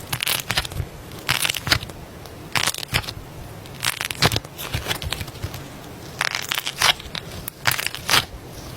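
Slime being squeezed and pressed by hand, giving bursts of sharp crackling and popping clicks. There are about seven bursts, roughly one every second or so, with soft crackle between them.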